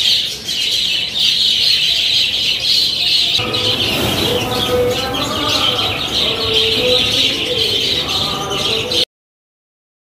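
Flock of budgerigars chattering and chirping continuously, the chatter growing fuller about three and a half seconds in. The sound cuts off abruptly about nine seconds in.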